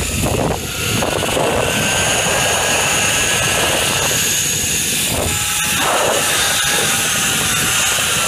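Zipline trolley pulleys rolling fast along the steel cable: a steady whir with a faint high whine, mixed with wind noise on the microphone.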